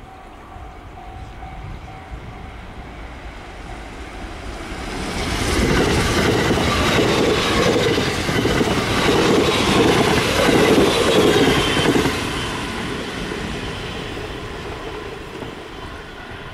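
A JR West limited express electric train passing at speed. Its wheels clatter over the rail joints in a rapid rhythm, with a rushing hiss. The sound builds about four seconds in, is loudest for the middle six seconds or so, then fades as the train draws away.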